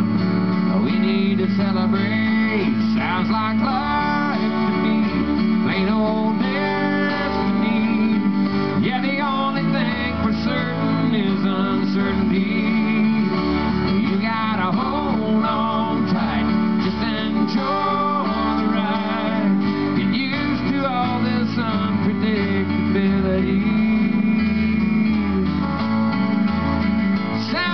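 Instrumental break of a country song: a bending lead melody on guitar over strummed acoustic guitar and a steady bass line.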